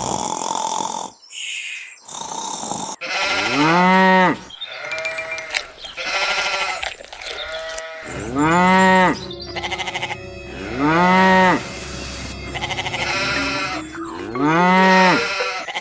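A pitched call repeated four times, each about a second long, rising and then falling in pitch.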